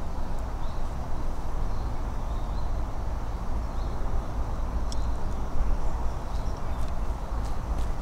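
Steady outdoor background noise with a low rumble, with a few faint high chirps and a couple of sharp clicks around the middle and near the end.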